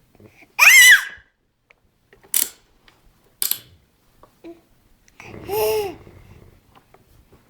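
Seven-month-old baby squealing and babbling: a loud high-pitched squeal that rises and falls about half a second in, then two short sharp squeaks around two and three and a half seconds. A longer, lower vocal sound follows about five and a half seconds in.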